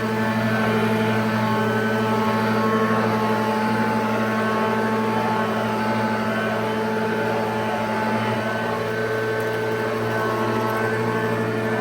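1989 Hoover Junior U1104 upright vacuum cleaner running steadily on its replacement 300 W motor, a constant motor hum with several steady tones.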